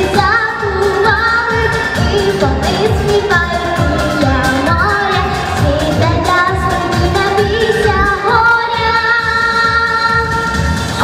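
A young girl singing a song into a microphone, holding and bending long notes, over a backing track with a steady beat.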